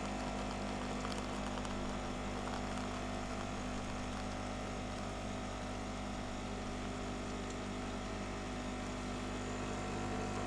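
Polaris PACM 2060AC automatic coffee machine running steadily while it brews and dispenses coffee into a mug, a constant even hum from its pump.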